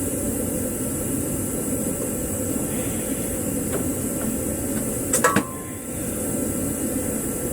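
Metal parts or hand tools knocking together, a few sharp clinks about five seconds in with a brief metallic ring after one of them, over a steady low drone.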